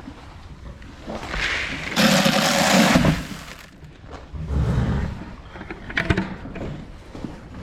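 Grain poured from a feed can into a horse's feeder, a rushing pour lasting about a second and a half, then a shorter, softer pour. A few light knocks follow near the end.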